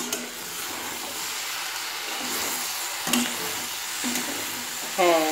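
Prawn curry with onions and tomatoes sizzling steadily in a metal kadai while a spatula stirs it, with a few scrapes of the spatula against the pan.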